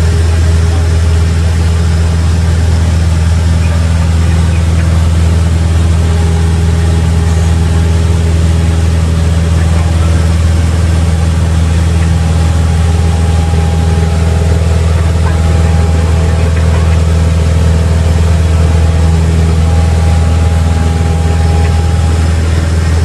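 Cessna 172's piston engine and propeller at takeoff power through lift-off and the initial climb, a loud, steady drone heard inside the cabin.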